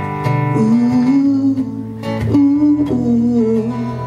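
Acoustic guitar playing a country-style accompaniment, with a wordless sung melody held over it from about half a second in.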